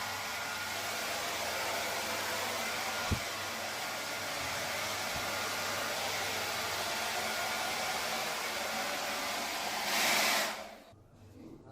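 Hand-held blow dryer running steadily, a wide rush of air, swelling louder near the end before it shuts off about ten and a half seconds in.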